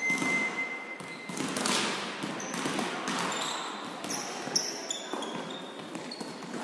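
Volleyball rally in a large sports hall: the ball is struck by hands and bounces, with knocks echoing through the hall. Short high squeaks, like sports shoes on the wooden floor, come during the middle of the rally.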